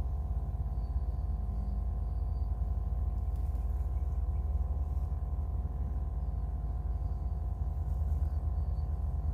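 A steady low hum with several faint constant tones above it, unchanging throughout, plus a faint thin high tone that comes and goes.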